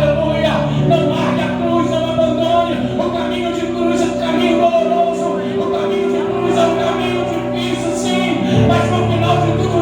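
Live gospel worship band playing with electric bass and drums under singing; the bass line moves to a new note about eight and a half seconds in.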